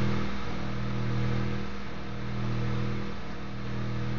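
A running machine's steady, low hum with several pitches, swelling and dipping about every second and a half.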